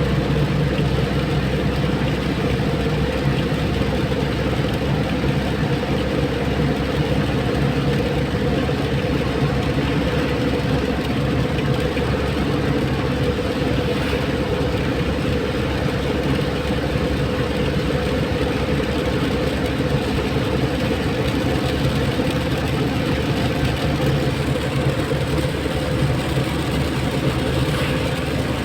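Steady vehicle driving noise: a motor's low, even hum with tyre and road noise over it, holding constant throughout.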